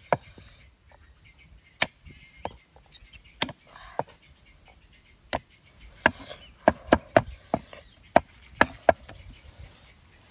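Heavy cleaver chopping on a thick wooden chopping board, mincing fish paste and red chillies. There are scattered single chops at first, then a quicker run of about eight chops in the second half.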